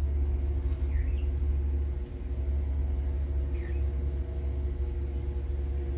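Steady low rumble of a running motor vehicle, with a steady hum joining about two and a half seconds in, and two faint short chirps.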